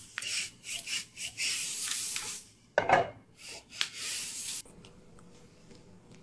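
Stir-fry of meat and vegetables sizzling and being tossed in a frying pan: a hissing sizzle with a heavier scrape of food against the pan about three seconds in, cutting off suddenly past the middle.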